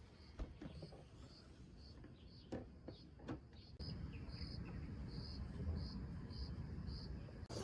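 Faint insect chirping: a short high-pitched pulse repeating about every half second. A few soft knocks come before it, and a low steady rumble grows louder about four seconds in.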